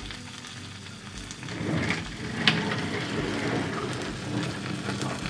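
Food sizzling and crackling as it heats in a metal container over an Esbit solid-fuel stove, growing louder after about a second and a half, with one sharp click about two and a half seconds in.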